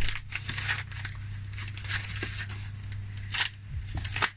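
Packaging rustling and crinkling in irregular short strokes as things are rummaged through and pulled out of a box, over a low steady hum.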